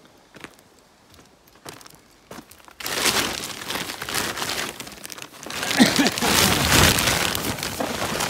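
Woven polypropylene bulk bag and the white plastic sheeting inside it crinkling and rustling loudly as hands pull it open, starting about three seconds in after a few faint knocks.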